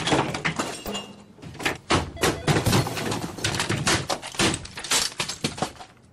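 A rapid run of crashes, thuds and breaking sounds as office equipment and desk items are shoved off desks and thrown to the floor, dying away near the end.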